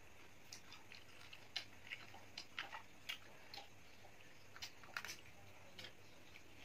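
People eating grilled squirrel meat with their fingers: faint, irregular clicks and smacks of chewing and biting.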